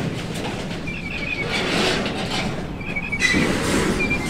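Outdoor ambience: a steady noisy wash that swells twice, with a bird's short warbling calls repeating several times.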